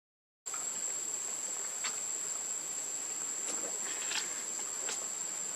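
Steady high-pitched drone of an insect chorus. It starts after a brief silent gap at the very beginning. A few faint short chirps sound over it.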